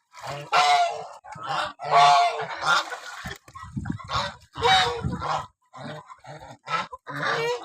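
Lionhead geese honking, a run of short harsh calls repeated about eight times with some overlapping.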